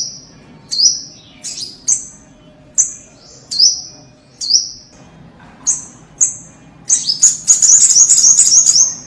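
Sogok ontong sunbird giving sharp, high chirps about once a second, each sliding down in pitch. About seven seconds in it breaks into a fast, louder twittering run.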